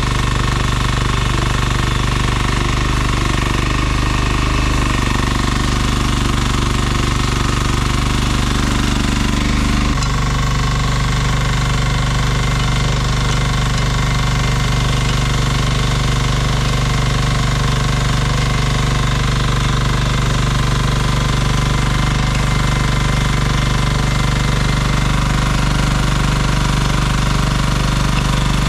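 Nuoman E10 1-ton mini excavator's engine running steadily and loudly while working, with a rough clattering note. Its sound changes abruptly about ten seconds in.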